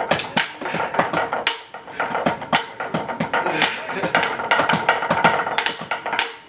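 Drumsticks beating a fast, irregular stream of hits on improvised store items, a metal pan and a wicker basket, with a couple of brief lulls.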